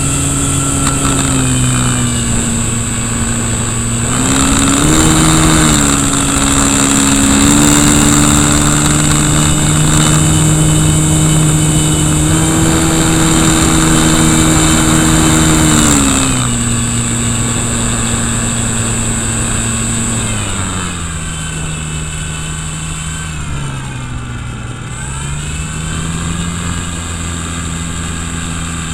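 Electric RC plane motor (KV1100 brushless on an 11.1 V battery) spinning its propeller, heard up close. Its pitch rises and gets louder about four seconds in, holds there, then drops about sixteen seconds in and again around twenty seconds, dips briefly near twenty-five seconds and comes back up as the throttle changes. A constant high whine sits above it.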